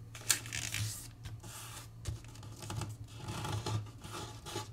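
Square of thin kami origami paper being folded in half and creased by hand: rustling and scraping in short bursts as the fingers slide along the fold, the loudest a sharp crackle about a third of a second in.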